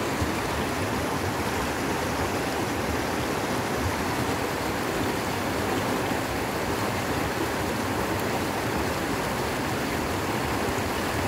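Fast, shallow mountain stream rushing over rocks in white-water rapids, a steady unbroken rush of water.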